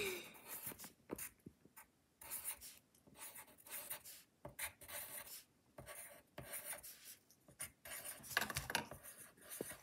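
Pencil point scratching on paper in short, irregular strokes as a pattern is coloured in.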